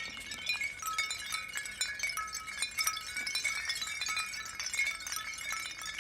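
Foley sound effect of dense, continuous tinkling: many small glassy clinks with short bell-like ringing tones, like a wind chime.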